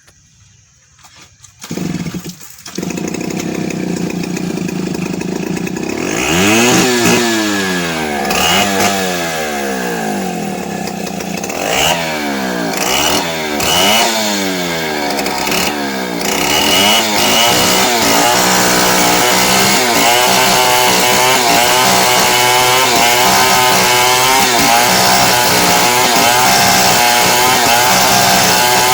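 Two-stroke chainsaw starting up about two seconds in and idling. From about six seconds in it is revved up and down several times, then held at high revs for the rest of the time.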